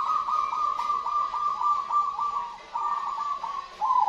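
Crossbred zebra dove (perkutut) singing its loud cooing song: quick runs of staccato notes in phrases with short breaks, the last phrase starting lower near the end.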